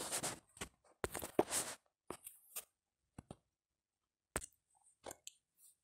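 Faint scattered clicks and a few brief rustling noises, separated by silent gaps.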